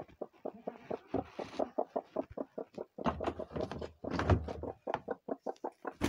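Broody desi × Aseel cross hen clucking in a quick, even run of short clucks as she is disturbed off her eggs. Low knocks from the plastic crate being handled come in about halfway through.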